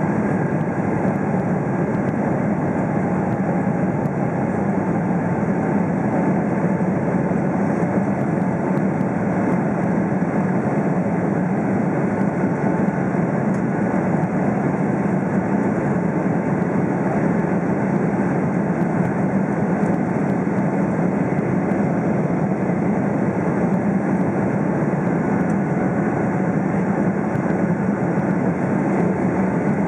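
Steady engine and airflow noise inside the cabin of a Boeing 777-300ER climbing after takeoff, from its GE90-115B turbofans, with a deep even drone and a faint steady whine above it.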